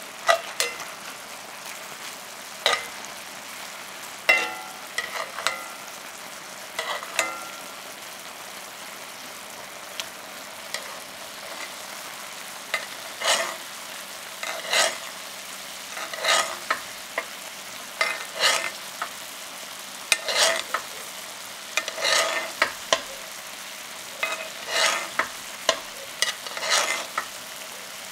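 Teriyaki sauce sizzling around chicken thighs in a cast-iron skillet, with a metal spoon scraping and clinking against the pan as the sauce is spooned over the meat. The scrapes come irregularly, more often in the second half, some with a brief ring.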